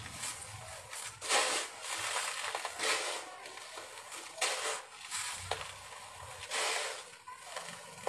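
Hands scooping and sifting dry, gritty concrete mix in a plastic tub: a steady crunching and trickling of grit and small gravel, with about five louder rushes as handfuls are lifted and poured back down.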